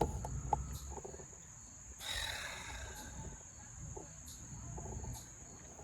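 A chipmunk calling with short, sharp chips at irregular spacing over a steady high insect drone, with a brief rustling noise about two seconds in.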